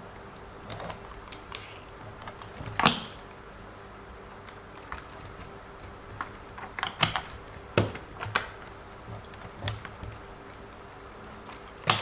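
Irregular light clicks and taps of small plastic RC car suspension parts being handled and fitted together, coming singly and in short clusters.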